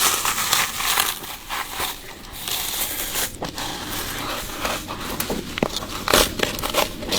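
Bark being peeled by hand off a Phellodendron (huangbai) trunk or branch: a continuous tearing and crackling with sharper snaps scattered through it.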